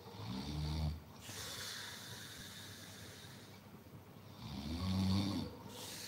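Snoring: two snores about four seconds apart, each a low, rough, pitched intake followed by a breathy exhale.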